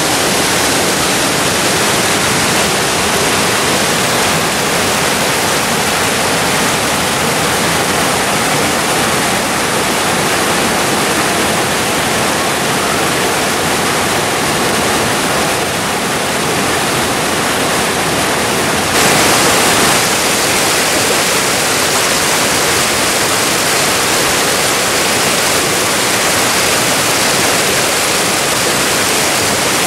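The Cauldron waterfall at West Burton rushing steadily into its plunge pool, a dense, even roar of falling water. About two-thirds of the way through it turns slightly louder and brighter.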